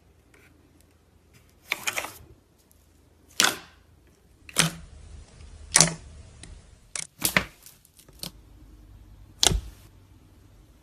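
Clear slime being played with by hand, giving a string of sharp pops and clicks, roughly one a second, as air pockets in the slime burst.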